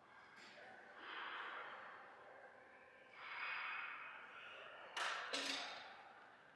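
A person breathing hard with exertion: two long, heavy exhalations, then two sharp clicks in quick succession about five seconds in.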